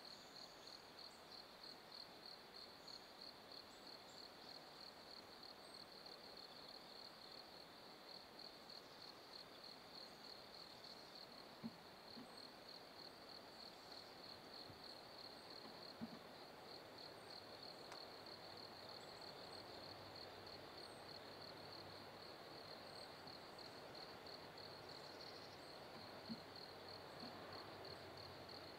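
Faint chorus of insects singing, a steady high-pitched song in rapid regular pulses. A soft rushing noise builds slightly in the second half, and a few faint clicks sound.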